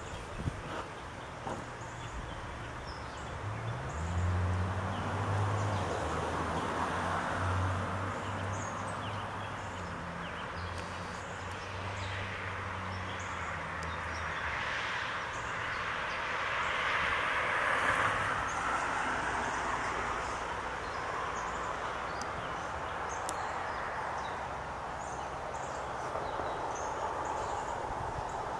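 Vehicle noise: a low engine hum that rises briefly about four seconds in, holds steady, and drops away about fourteen seconds in, followed by a swelling rush like a passing vehicle. Faint bird chirps throughout.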